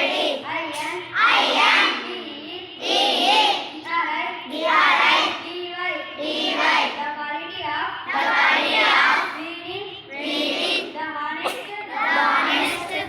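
Children singing a song in phrases of a second or two, with short breaks between them.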